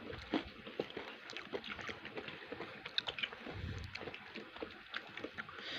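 Close-up wet eating sounds: irregular smacks and clicks of chewing.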